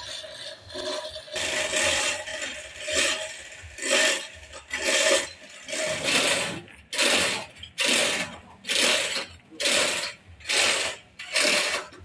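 Hand chain hoist (chain block) being hauled: the hand chain rattling through the block with a ratcheting clatter in quick regular strokes, about two a second, from about halfway through. Before that, slower uneven scraping strokes.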